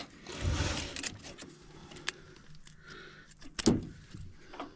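Wiring being handled inside a furnace cabinet: rustling and scraping as the wire is fed through, a faint click about two seconds in and a sharp plastic click about three and a half seconds in as a connector is handled.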